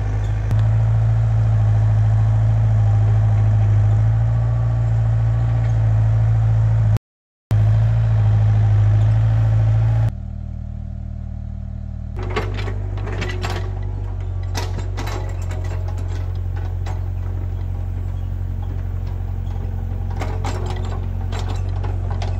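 Doosan mini excavator's diesel engine running steadily at working revs while it digs soil, with scattered knocks and scrapes from the bucket and tracks in the second half.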